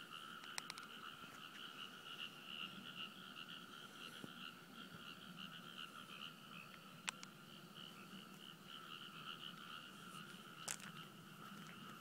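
Faint chorus of frogs calling continuously at night, a steady pulsing drone held on two pitches. Two brief sharp clicks sound about seven and eleven seconds in.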